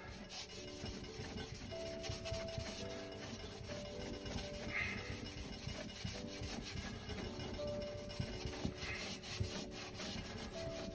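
Polishing paste being rubbed by hand over an old label, a quick, continuous scrubbing of many short strokes. Faint guitar music plays underneath.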